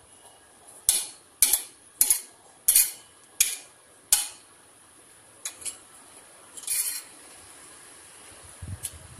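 A thin wooden stick striking a concrete floor: six sharp knocks about two-thirds of a second apart, then a few lighter taps and a short scrape.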